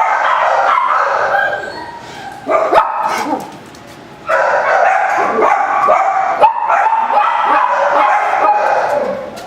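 Dogs barking and yipping in dense, overlapping calls, in two loud stretches with a quieter lull about two to four seconds in.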